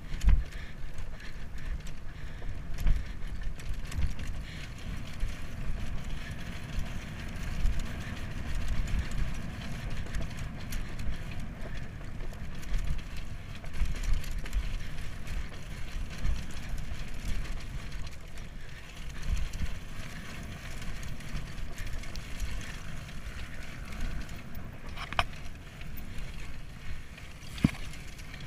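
Dirt bike running on a trail, with an uneven low rumble that rises and falls and wind noise on the microphone.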